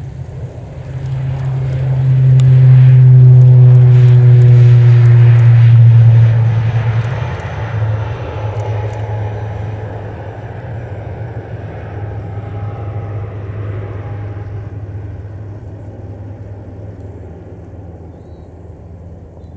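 ATR 72 twin-turboprop airliner at take-off power, its propellers making a low steady drone. The sound swells as the aircraft passes on its take-off roll, is loudest from about two to six seconds in, then fades slowly as it climbs away.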